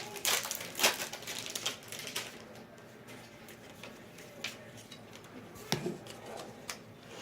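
Trading cards and foil pack wrappers being handled: a run of light clicks and rustles of card stock, thinning out after about two seconds, with a sharper tap near the end.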